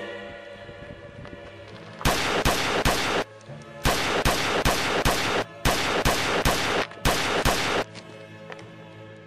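Rapid pistol gunfire in four quick volleys, about three shots a second, over steady background music; the shooting starts about two seconds in and stops near the end.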